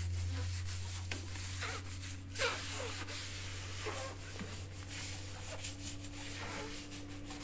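Soapy sponge wiping over the glass top of a gas cooktop, in soft, irregular rubbing strokes, over a steady low hum.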